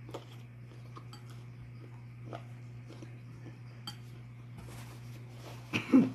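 Metal fork clinking against a bowl a few times, then near the end a loud, two-part nose blow into a paper napkin.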